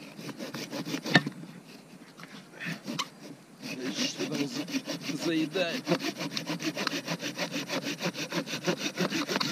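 Folding hand saw cutting through a pine log to free a carved cup blank. A few slow, uneven strokes and a sharp knock about a second in, then fast, even back-and-forth strokes from about four seconds in.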